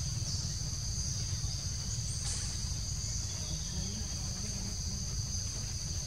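Steady, high-pitched drone of forest insects, unbroken throughout, over a constant low rumble, with one brief faint click a little past two seconds in.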